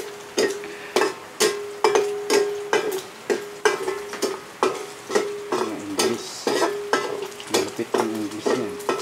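Metal spatula stirring in a wok of frying meat: a sharp clank with a ringing tone about twice a second, over oil sizzling.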